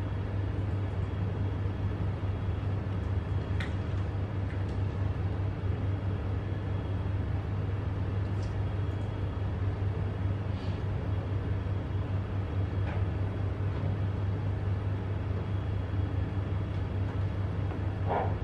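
Steady low hum of room noise, with a few faint clicks.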